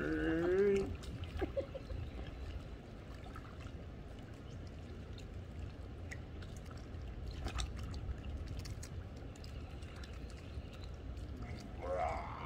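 Water lapping and splashing softly in a swimming pool as children move through it, over a low steady rumble. A voice is heard briefly at the start and again near the end.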